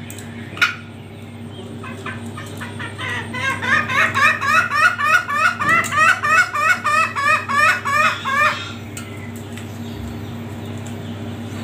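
Caged junglefowl calling a rapid run of short, sharp, repeated notes, about three a second for some five seconds, starting about three seconds in. A single sharp tap sounds just before, about half a second in.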